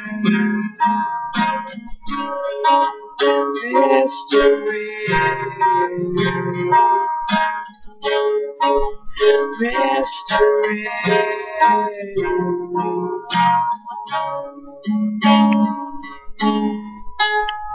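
Acoustic guitar played solo: a steady run of picked notes and chords with no singing, the instrumental part of a song.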